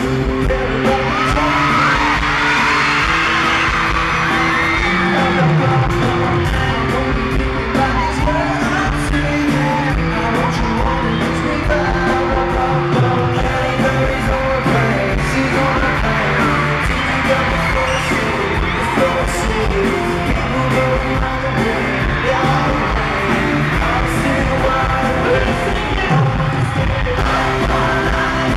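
Live pop-rock band performing, with sung lead vocals over electric guitar, bass guitar and a steady drum beat through the concert PA. Fans scream along over the music at times.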